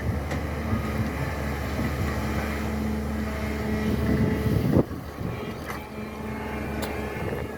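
SANY excavator's diesel engine running steadily under load. Just under five seconds in there is a loud knock, after which the sound is a little quieter.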